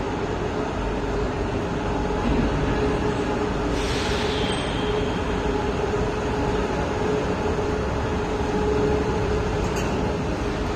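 Steady running noise of CNC metalworking machines on a factory floor, with a constant hum and a brief hiss about four seconds in.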